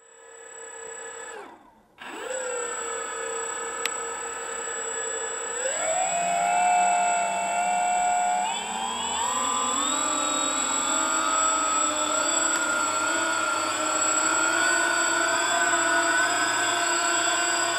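Electric motors of an RC Hunter-Killer Aerial model tricopter spinning the propellers in its ducted fans: a brief whine that winds down, then from about two seconds in a steady whine that steps up in pitch twice, near six and eight and a half seconds, and keeps climbing slowly. A steady high whistle sits over it throughout.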